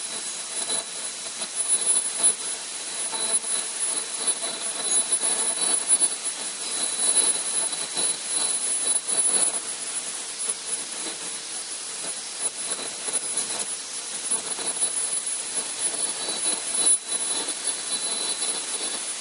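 Aluminum-plastic composite pipe extrusion line running: a steady machine hiss with thin high whines and many small irregular ticks.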